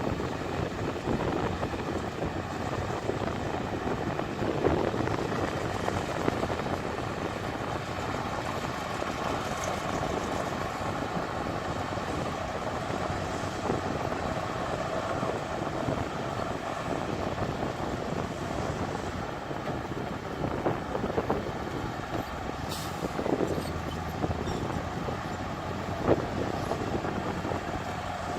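Heavy diesel earthmoving machinery, a bulldozer and dump truck, running steadily with a faint whine, and a few short knocks now and then.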